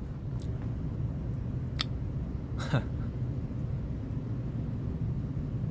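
Steady low background rumble, with a faint click a little under two seconds in and a brief soft vocal sound, falling in pitch, a second later.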